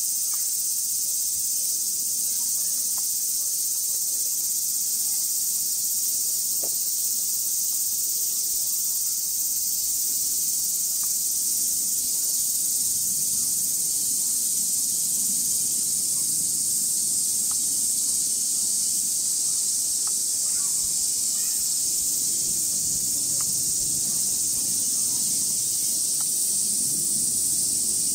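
Steady chorus of summer cicadas: a continuous high-pitched drone that does not change.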